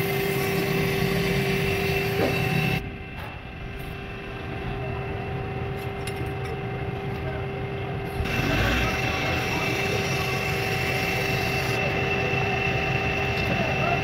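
Electric blower feeding air into a charcoal forge, running with a steady humming drone over a rush of air. It turns quieter and more muffled for about five seconds from about three seconds in.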